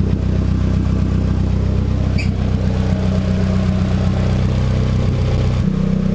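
Turbocharged Nissan KA24DE four-cylinder engine idling steadily on its first run after the turbo build, warming up toward thermostat opening. About five and a half seconds in, its low tone shifts abruptly.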